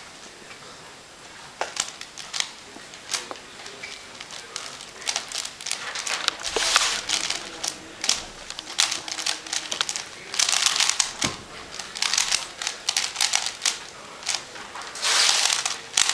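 Rapid clicking and clacking of a 3x3x3 Rubik's cube being turned at speed, starting about a second and a half in and coming in quick flurries with short pauses between them.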